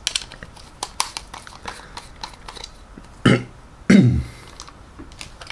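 Small, irregular clicks and scrapes as the screws of a European wall plug's plastic housing are undone by hand. Twice, a little past the middle, a short low throat noise cuts in.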